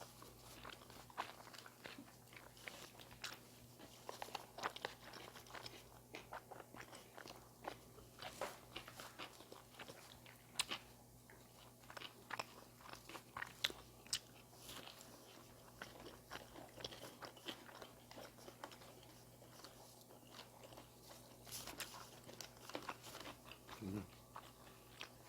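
A person chewing and biting bossam (boiled pork wraps) close to the microphone, with many small crunches and wet clicks at an uneven pace.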